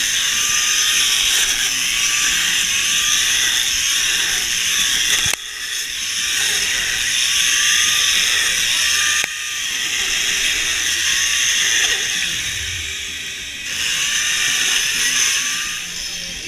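Chainsaws cutting into blocks of ice, their engines revving up and down again and again. The sound changes abruptly twice, about five and nine seconds in.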